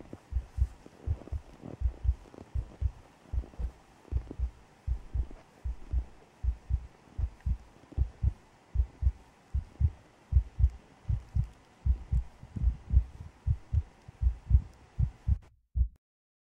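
Heartbeat sound effect: slow, steady low double thumps repeating over a faint hiss, cutting off about a second before the end.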